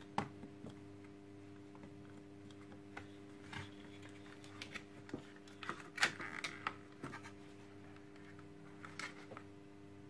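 Hard plastic parts of a vacuum cleaner's cable reel being handled and pressed together while a stubborn latch is worked into place: scattered faint clicks and taps a second or more apart, over a faint steady hum.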